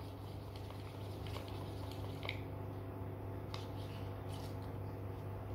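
Paintbrush working paint in a plastic palette well: faint wet squishing with a few light ticks of the brush against the plastic, over a steady low hum.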